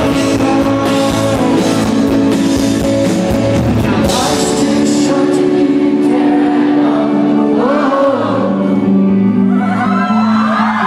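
Rock band playing live with a lead vocal, drums and cymbals. The drums fall away about six seconds in, leaving held chords under the singing.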